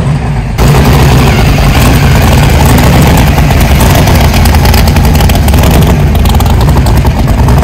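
Hot rod car engine running loud and close, its exhaust jumping up sharply about half a second in and then holding steady.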